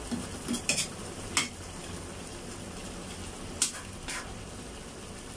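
Metal ladle stirring chicken feet stew in a steel pan, clinking sharply against the pan four times, over a steady low sizzle from the pan.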